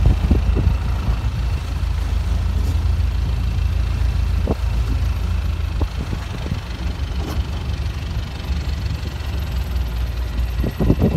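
Longtail boat engine running steadily, a low drone heard from on board.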